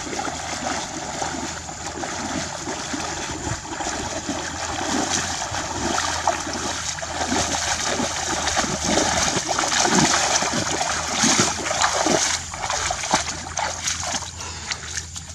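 Water splashing and sloshing in quick, irregular bursts, as when hands and bodies churn shallow water while catching fish. It is heaviest about two-thirds through and eases off near the end.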